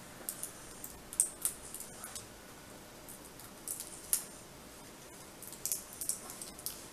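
Sharp, scattered clicks and light scraping of small plastic parts being worked loose inside a Nextbook 10.1 tablet, at its data cable connector. A few clicks come in the first couple of seconds, one comes about four seconds in, and a quick run comes near the end.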